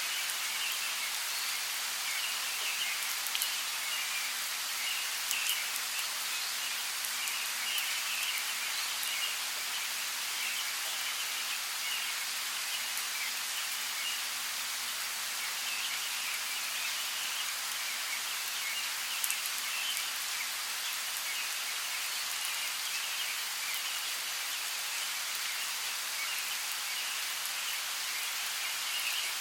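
Steady rain falling in a rainforest: an even hiss with scattered louder drops. A rapid chirping comes and goes under it.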